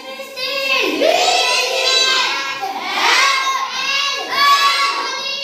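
A boy's voice reading words aloud from the blackboard in a high, sing-song chant, with drawn-out and gliding notes.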